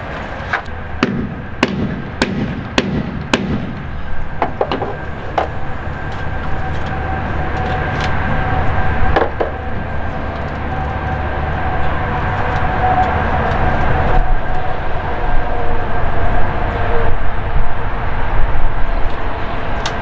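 A quick run of knocks as a man climbs a ladder propped against the hull, a few more scattered knocks, then a steady low mechanical rumble that grows louder toward the end.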